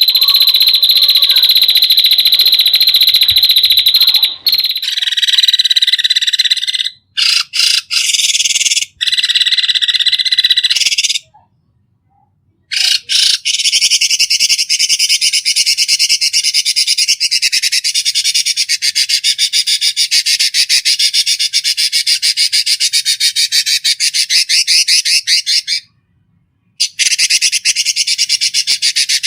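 Harsh, high buzzing and rapidly pulsing animal calls of the kind used as 'kasar' (rough) song-training recordings for songbirds: a steady shrill buzz, then varied calls, and from about 13 s a fast pulsing trill. It breaks off into brief silence twice, near 11 s and near 26 s, where separate recordings are joined.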